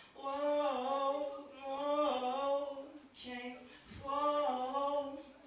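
A solo singer holds long, wavering notes in three drawn-out phrases with no clear words and no accompaniment. A soft knock comes about four seconds in.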